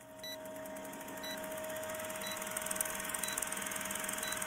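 Old-film countdown leader sound effect: a short, high beep once a second, five in all, as the numbers tick down. Under the beeps run a steady hum and the rapid, even clatter of a film projector.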